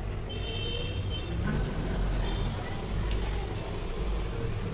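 A steady low rumble of background noise, with a brief high tone early on and a few faint clicks.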